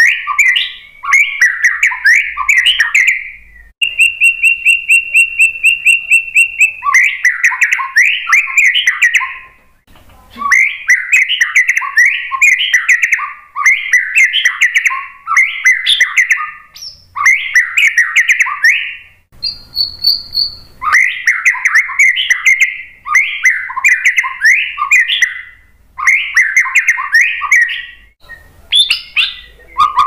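White-rumped shama (murai batu) singing: fast runs of varied, quickly changing whistled and chattering notes in repeated bouts, with one long, steady whistled note a few seconds in, and short pauses between bouts.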